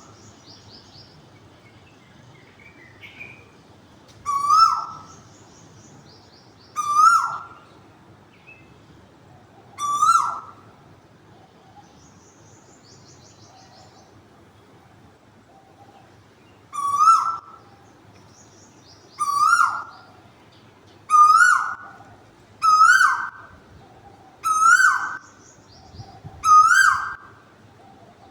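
A cuckoo calling: nine loud single notes, each short and dropping in pitch at its end, repeated every two to three seconds, with a long pause in the middle and coming faster toward the end. Faint high chirps from a smaller bird sound between the calls.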